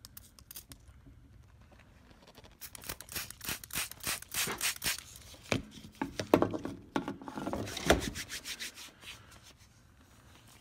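Rapid scratchy rubbing and spritzing noises close to the microphone: hands at work with a spray bottle, wetting a freshly plugged tire puncture with soapy water as a leak check. The noise is densest and loudest between about three and eight seconds in.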